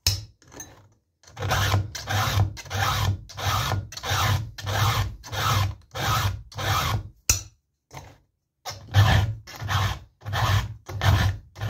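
A round chainsaw file is rasping across the cutters of a saw chain held in a vise, in even strokes about two a second. A sharp click comes just past the middle, then the strokes stop for about a second and resume. The file is getting dull and needs pressure to cut.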